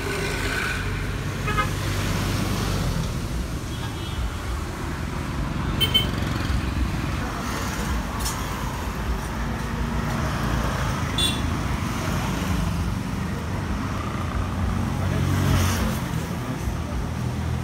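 Street traffic noise: a steady low rumble of passing vehicles, with a few short horn toots.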